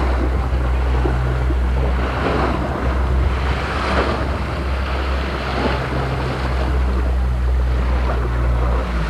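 A small boat's outboard motor running steadily under way, a low hum under the rush of water along the hull and wind on the microphone. The motor hum drops away at the very end.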